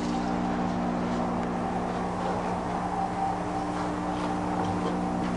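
Steady electric hum of a wastewater treatment system's dosing pump running, with a faint hiss. The pump is dosing septic-tank effluent onto a pumice biofilter.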